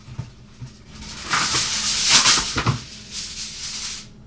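Aluminium foil crinkling and rustling as it is spread over a casserole dish and pressed down, in loud crackly bursts starting about a second in.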